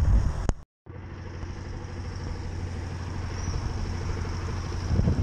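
A steady motor hum with a low drone and a thin high whine above it, starting after a rumble of wind and a sudden cut to silence under a second in.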